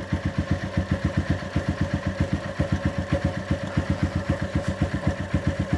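Honda CG 150 Titan's single-cylinder four-stroke engine idling steadily, firing at about ten pulses a second. Under it runs a very faint noise from inside the engine, which a mechanic has put down to the valve tappet.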